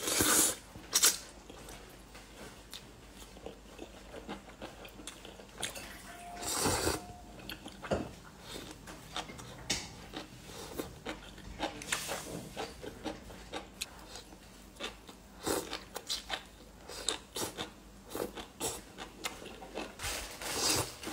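A person slurping and chewing rice noodles from luosifen (river-snail rice noodle soup) close to the microphone: frequent small wet mouth clicks and chewing, broken by several longer slurps, one right at the start, one around six to seven seconds in, and others near twelve and twenty seconds.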